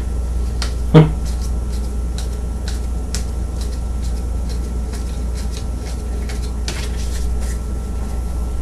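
Trading cards being handled and sorted: one sharp knock about a second in, then soft scattered clicks and rustles, over a steady low electrical hum.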